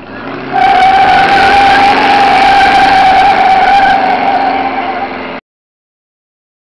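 Car doing a burnout: the engine held at high revs while the spinning rear tyres screech in one loud, steady high-pitched tone. It cuts off suddenly about five seconds in.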